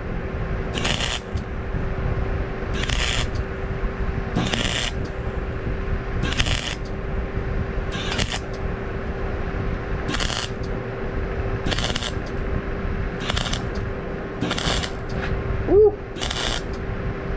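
Electric arc welding on a broken rake: a steady crackle of the arc, with a louder hissing surge about every one and a half to two seconds, over the steady hum of a small fan.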